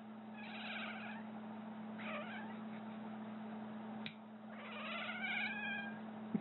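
Cat giving three strange wavering yowls, the longest near the end, in reaction to nails being clipped. A sharp click of nail clippers about four seconds in comes just before the last cry, and another click comes at the very end.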